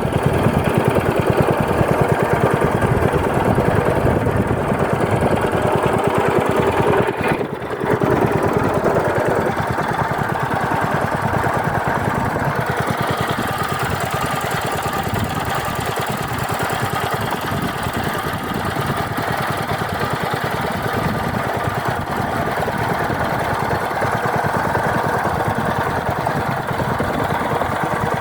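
A small engine running steadily, its firing pulses audible throughout, with a brief drop in level about seven seconds in.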